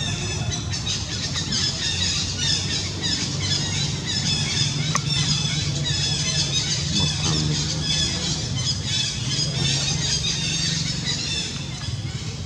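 Many short, high-pitched chirping and squealing animal calls overlapping continuously, over a steady low hum.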